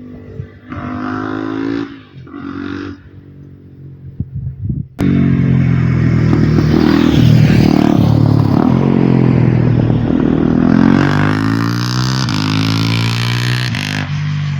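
Husqvarna Vitpilen 401's single-cylinder engine through an Akrapovič exhaust with the exhaust chamber deleted. In the first three seconds there are two short revs. At about five seconds it turns suddenly loud and runs hard under throttle, and its pitch falls around ten to twelve seconds as the bike goes by.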